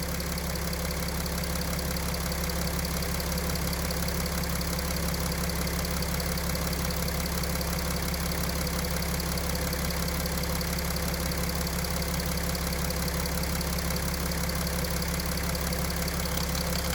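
Mercedes OM642 V6 diesel idling steadily. The engine has just been restarted on low lift pressure, and the knock from the high-pressure fuel pump drive has not yet set in.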